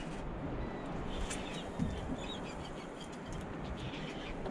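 Steady wind and water noise, with a few faint short bird chirps about a second in and again around two seconds.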